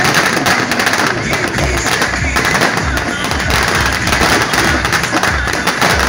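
A string of firecrackers going off in rapid, continuous crackling, over procession music with a regular drum beat.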